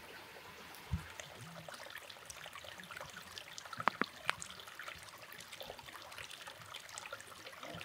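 Faint trickle of running water with scattered small clicks. There is a soft thump about a second in and a couple of sharper ticks about four seconds in.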